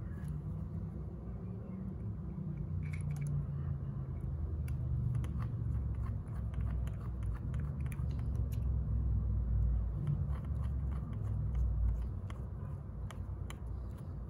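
Screwdriver working a screw in the top of a vintage Century fan's motor housing: scattered small clicks and scrapes of metal on metal, over a low rumble that swells in the middle.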